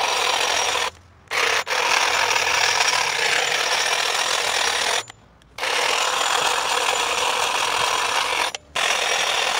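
TOTAL THTLI20461 cordless lithium-ion hedge trimmer running, its reciprocating blades cutting through a leafy bush. It cuts out briefly and starts again about a second in and around five seconds in, dips for a moment near the end, then stops.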